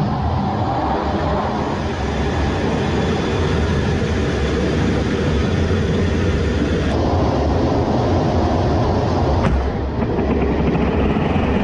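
Twin F414 turbofan engines of an F/A-18-family jet running at high power as heard from inside the cockpit, a steady heavy rumble with a hiss over it, while the jet waits on the carrier catapult for launch. The sound grows brighter about seven seconds in, and a single sharp click comes about two seconds later.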